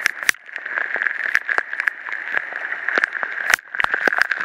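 Heavy rain and pea-sized hail: a steady hiss of rain with many irregular sharp clicks of hailstones striking the steps and surfaces close by.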